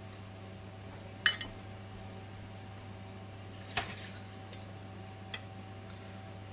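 Carving knife and fork clinking against a metal serving platter while slicing cooked meat: three sharp clinks, the loudest about a second in, the others near four and five seconds. A steady low hum runs underneath.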